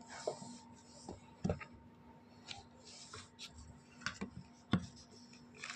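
A cardboard product box being opened and its packaging handled: scattered light clicks, taps and knocks with a few short rustles.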